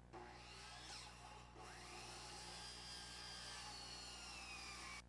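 Electric power tool running on wood: a whine that rises and falls in pitch, breaks off briefly about a second and a half in, then runs on with its pitch slowly sinking before cutting off abruptly.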